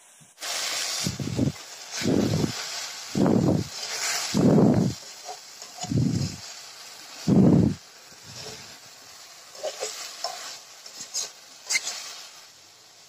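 Spatula stirring small fish in a thick masala gravy in a metal wok: about six heavy scraping strokes roughly a second apart over a steady sizzle. After that the frying goes on more quietly, with a few small clicks near the end.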